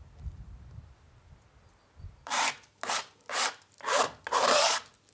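A painting tool scraping paint across a canvas in repeated strokes, about five of them starting about two seconds in, the last one longer.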